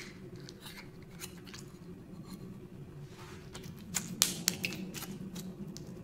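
Hands playing with a glitter slime, making irregular sharp clicks and pops, with a brief squishy rustle about three seconds in and the loudest clicks just after four seconds.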